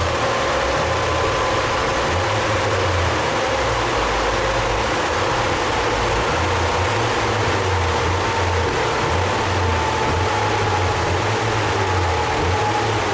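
Large rolling-road cooling fan blowing steadily, with a low, uneven rumble from the car's engine idling underneath and a faint tone that slowly falls in pitch.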